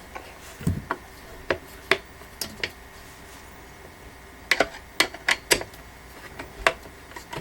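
Irregular clicks and light taps of a screwdriver, screw and steel bracket being handled and realigned while a screw that won't go in easily is adjusted, with a duller knock under a second in and a quick run of clicks about halfway through.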